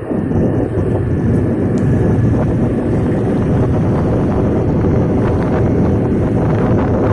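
A vehicle on the move: steady engine and road rumble, with wind buffeting the microphone.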